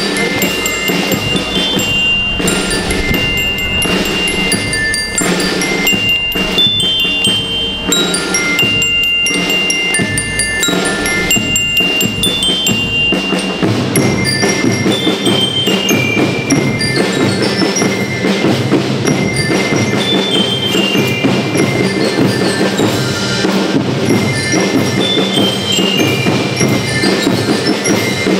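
A school rhythm band playing: bell lyres ring out a melody of short, bright notes stepping up and down over steady snare and bass drum rhythm. The drumming grows heavier about halfway through.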